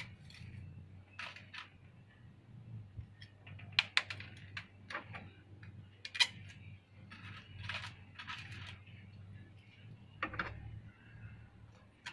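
Thin painted wooden fan ribs clicking and clacking against each other as they are handled and squared up into a bundle by hand. The clicks are light and irregular, with a few sharper ones, over a low steady hum.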